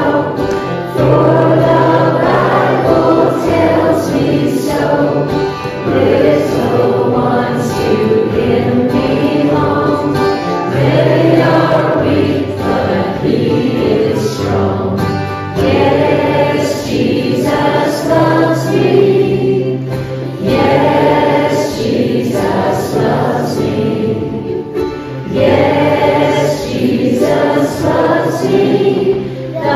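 A children's choir singing a hymn together with a few adult voices, accompanied by acoustic guitar, in sung phrases with short breaths between them.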